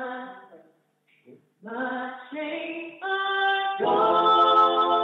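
A woman singing short unaccompanied phrases of a hymn. About four seconds in, sustained organ-like keyboard chords come in beneath her.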